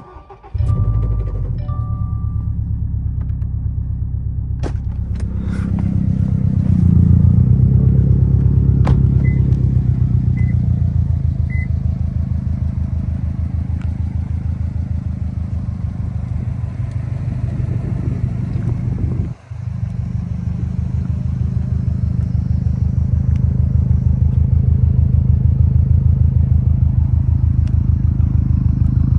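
Subaru WRX STI's turbocharged 2.5-litre flat-four (EJ257) starting about half a second in, then running at idle with a steady low rumble through a Tomei aftermarket exhaust. The sound cuts out briefly about two-thirds of the way through.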